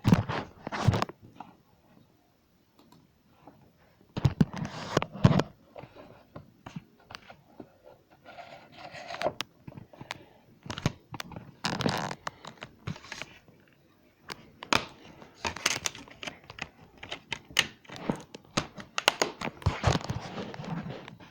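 Irregular knocks, clicks, scrapes and crinkling, in clusters with short quiet gaps between them.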